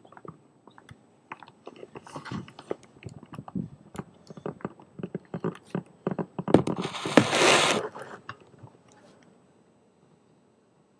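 Handling noise on a hand-held phone's microphone: irregular clicks, knocks and rubbing as the phone is turned in the hand, with a loud rustle for about a second and a half some six and a half seconds in.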